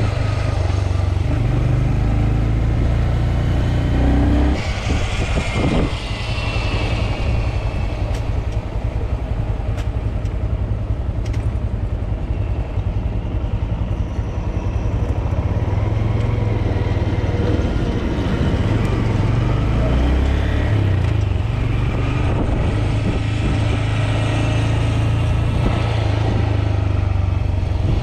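Small motorcycle engine running while riding through city streets, with wind on the microphone; the engine note drops briefly about five seconds in, then carries on steadily.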